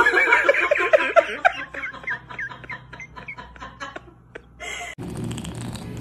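A person laughing in a quick run of bursts that fades away over about three seconds. About five seconds in, a steady low hum takes over.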